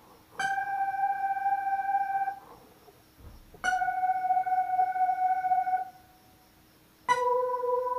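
Electronic keyboard playing a solo phrase slowly, one key at a time: three single held notes with a clean, steady tone, each about two seconds long, the third lower than the first two.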